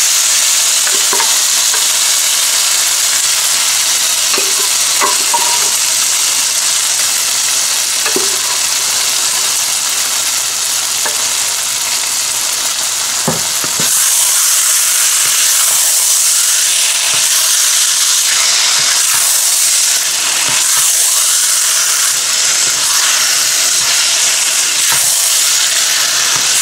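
Meat and bitter gourd sizzling as they are stir-fried in a non-stick wok, being browned, with a wooden spatula scraping and knocking against the pan now and then. The sizzle gets suddenly brighter about halfway through.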